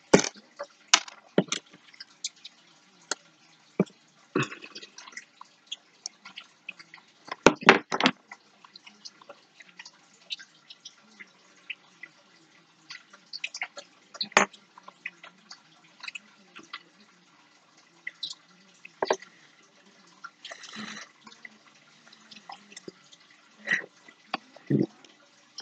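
Irregular small clicks and taps of a wire paper clip being bent with pliers and handled on a tabletop, a few louder clicks among many faint ones.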